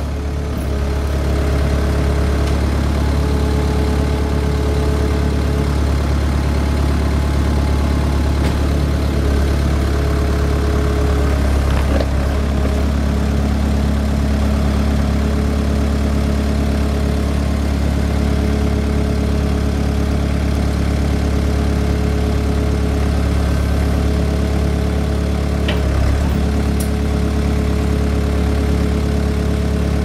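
Takeuchi TL150 compact track loader's four-cylinder diesel engine running steadily while the loader arms are raised. Its note changes slightly about twelve seconds in.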